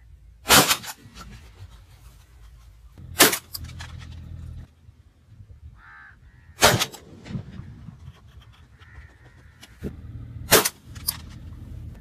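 Four gunshots roughly three seconds apart, each a sharp crack with a short tail, followed by a couple of quieter clicks near the end.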